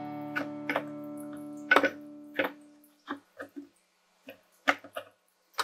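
Background guitar music: plucked and strummed notes ring on and fade out about halfway through, followed by a few short, sparse clicks.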